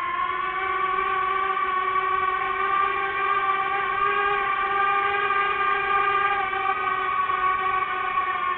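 FPV drone's motors and propellers holding a steady buzzing whine with many overtones, the pitch staying level throughout.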